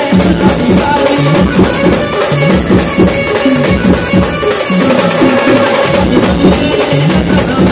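Loud street-band music played through a truck-mounted sound system: a keyboard melody over fast, heavy drumming from marching drummers.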